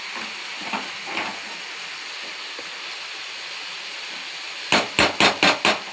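Food sizzling steadily in hot oil in a kadai, then near the end five quick scraping strokes of a spatula in the pan.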